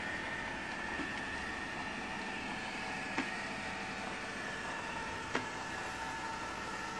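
Roomba robot vacuum running: a steady motor whine over a hiss, with two sharp knocks about three and five seconds in.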